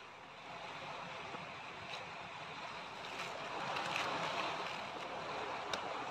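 Steady wash of sea surf, with crinkling of a foil-wrapped packet being handled in the middle and a few light clicks.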